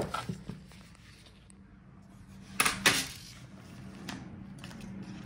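Laptop parts being handled on a bench as the display assembly is separated from the palmrest: a sharp click at the start, then two quick hard knocks of plastic and metal on the table about halfway through, and a lighter knock a little later.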